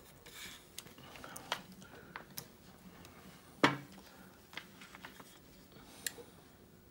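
Small clicks and taps of tiny model-kit parts being handled and pressed onto their pins, with one sharp click a little past halfway.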